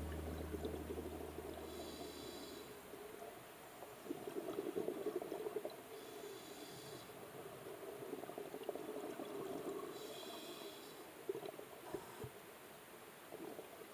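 Scuba diver breathing through a regulator underwater: a short hiss on each inhale and a crackly burble of exhaled bubbles between them, about every four seconds, heard faintly.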